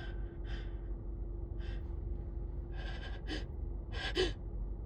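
A person with a head cold taking short gasping breaths and sniffs, about six of them, while working up a sneeze that is stuck at the tip of the nose.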